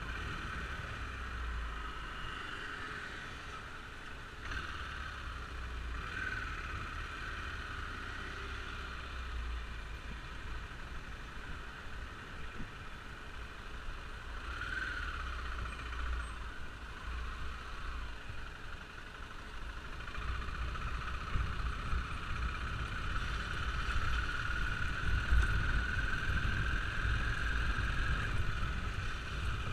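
Motorcycle riding sound heard from the bike itself: gusty wind rumble over a steady engine drone, which rises slowly in pitch near the end as the bike speeds up.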